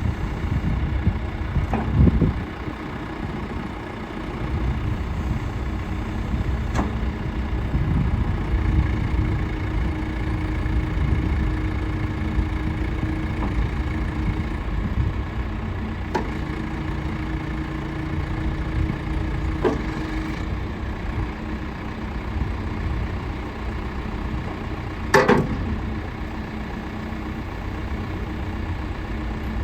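John Deere 310D loader backhoe's diesel engine running steadily. A steady tone rises over it for several seconds, twice, and a few sharp knocks sound, the loudest near the end.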